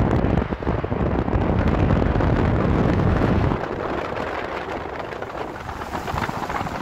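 Wind buffeting the microphone while moving along a road, a heavy low rumble that drops off about three and a half seconds in.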